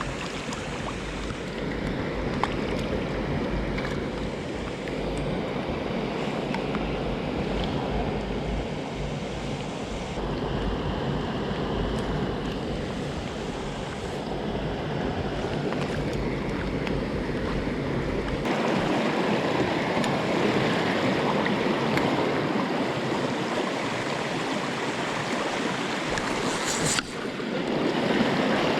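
Steady rush of a mountain stream's flowing water. For roughly the first two-thirds a low rumble of wind on the microphone lies under it; after that the water sounds fuller, with a brief break near the end.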